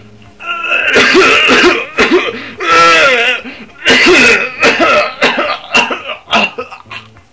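A man coughing and clearing his throat loudly in a long run of throaty fits.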